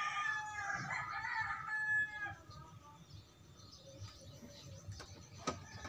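A rooster crowing once, a long drawn-out call that ends about two seconds in. A few faint clicks follow near the end.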